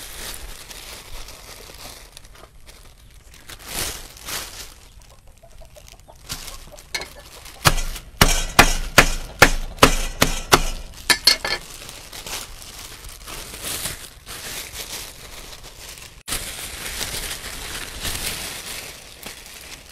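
A cleaver knocking on a banana inside a plastic bag on a wooden chopping block, flattening it: a run of about a dozen sharp knocks, three or four a second, through the middle, with plastic bag crinkling around them.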